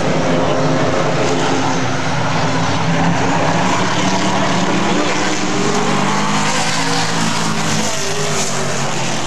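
Super late model stock cars' V8 engines running at speed on an oval, several cars at once, their pitch rising and falling as they pass.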